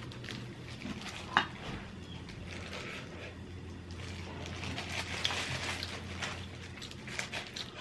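Soft handling noises of rice being stuffed into fried bean curd (inari) pockets, with one sharp click about a second and a half in, over a steady low hum.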